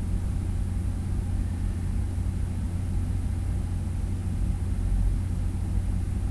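Steady low hum and rumble of background noise, with a faint hiss above it and no other events.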